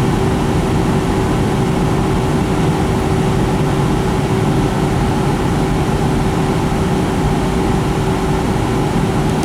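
Steady cabin noise inside a Boeing 757-200 in flight: an even drone of airflow and its Pratt & Whitney PW2000 engines, with one steady tone running through it.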